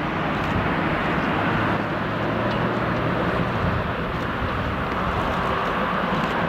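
Airbus A380-841 airliner's four Rolls-Royce Trent 970 turbofan engines and airframe noise heard close by as the jet flares and touches down on the runway: a steady, loud rushing noise with a low hum under it.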